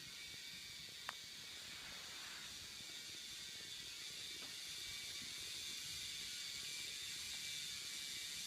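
Motorized K'nex train running on its all-K'nex track: a faint, steady high whir from its two small electric motors and plastic wheels, growing slightly louder. One sharp click about a second in.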